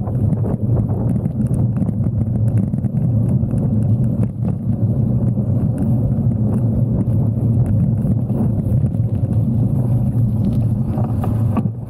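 Gravel bike's knobby tyres rolling over a dirt path: a steady low rumble with faint scattered rattles, picked up by a camera mounted on the bike.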